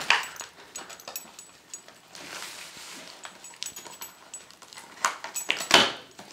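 A dog tearing and pawing at gift wrapping paper, the paper crinkling and ripping in scattered bursts, loudest about five to six seconds in.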